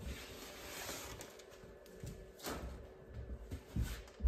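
Faint rustling and brushing of a hand sweeping stray 3D-printer filament strings across a workbench top, with a couple of soft knocks.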